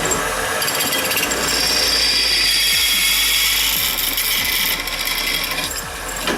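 Electric power tool running under load on a steel workpiece, a steady loud noise with a high whine that eases off a little near the end.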